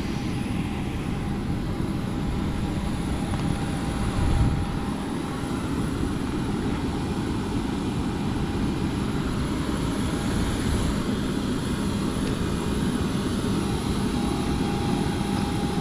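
Jet aircraft noise on an airport apron: a steady high whine over a low rumble, with a brief louder swell about four seconds in.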